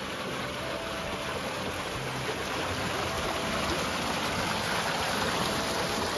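Water rushing along a narrow concrete irrigation channel: a steady hiss of flowing water that grows a little louder.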